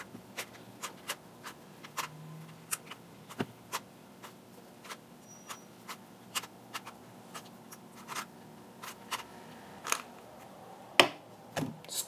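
Official Rubik's brand 3x3 cube being scrambled by hand: irregular plastic clicks and scrapes as its faces are turned, a few a second, with a louder knock near the end as the cube is set down on the table.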